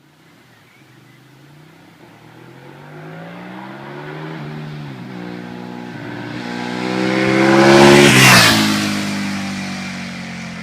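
Ducati 1098S L-twin motorcycle approaching under acceleration, its engine note climbing and growing louder, then passing close about eight seconds in with a sharp drop in pitch and pulling away.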